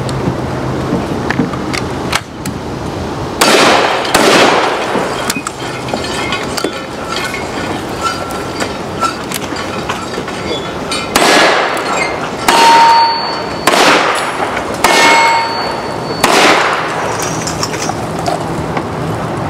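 Two shotgun blasts about three and a half seconds in, then five single-action revolver shots about a second apart. Steel targets clang, with a ringing tone after some hits.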